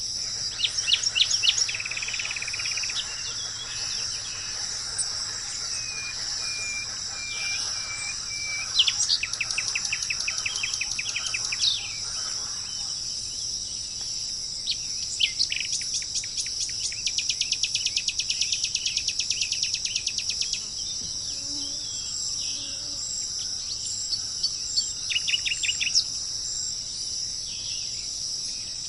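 Wild birds calling over a steady high-pitched insect drone. The birds give several runs of rapid sharp chirps, one lasting several seconds just after the middle, and a row of short level whistled notes about a quarter of the way through.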